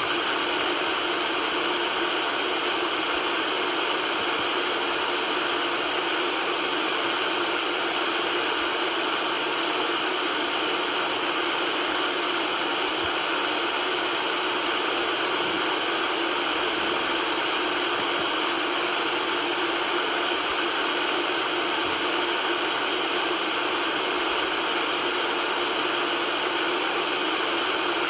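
Steady white noise: an even, unbroken hiss with most of its weight in the upper range and little low rumble.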